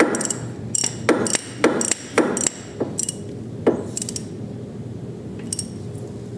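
Socket ratchet clicking in quick bursts of strokes as it tightens the motorcycle's oil drain plug, busy through the first four seconds, then only a few faint ticks.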